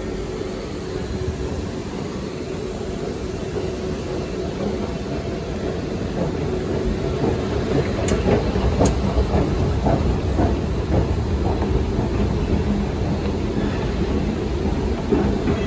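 Steady rumble and rail noise inside a Singapore MRT East-West Line train. It grows louder about halfway through, with two sharp clicks about a second apart.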